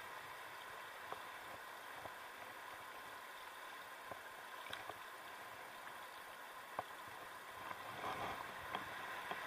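Faint river water flowing and lapping, with a few small clicks and a slightly louder splashy stretch about eight seconds in.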